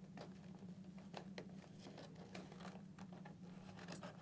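Faint rustling and small plastic ticks of fingers working a helmet top liner's clips into the channel along the eyeport, over a low steady hum.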